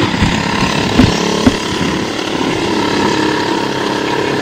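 Quad bike engine running steadily, heard with a rushing noise, with two sharp knocks about a second and a second and a half in.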